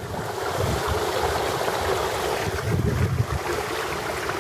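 Water rushing and splashing in the wake of a sailboat moving at about 10 knots, with wind gusting on the microphone in low rumbles.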